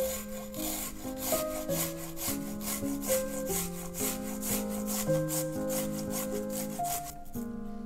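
Garlic cloves grated on a fine stainless-steel rasp grater, in repeated quick rasping strokes that stop about seven seconds in.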